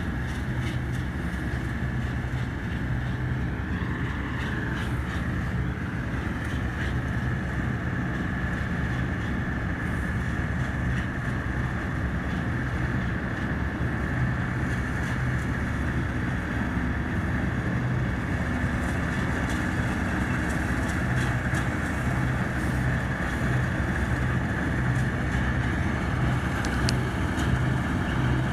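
Bizon Z056 combine harvester running while harvesting grain: a steady diesel engine drone with a steady high whine over it, growing slowly louder as the machine comes closer.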